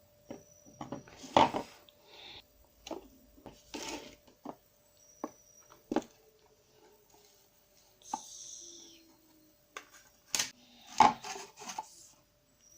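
Plastic clicks, knocks and scrapes as the removed two-in-one dust compartment and water tank of a robot vacuum-mop is handled and opened. The sharpest knocks come about a second and a half in and again near the end, with a short rustle around eight seconds in.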